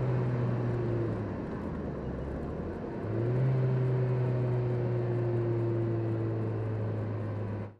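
PGO Cévennes sports car's engine running on the road, heard from the driver's seat: a steady engine note that drops away about a second in, comes back about three seconds in and pulls on steadily, sinking slowly in pitch before cutting off just before the end.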